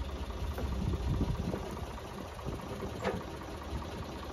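Engine idling steadily, with a brief squeak about three seconds in.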